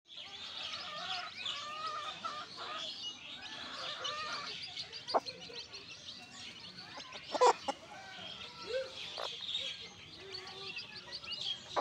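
A brood of chicks peeping continuously in quick, high-pitched chirps, with the mother hen's lower clucks mixed in. A few sharp clicks cut through, the loudest about seven and a half seconds in.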